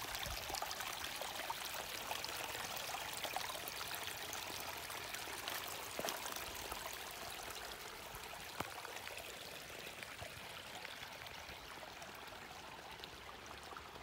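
Small woodland creek trickling and splashing over rocks in a little cascade, growing fainter toward the end. A couple of sharp clicks stand out, one about midway and one a little later.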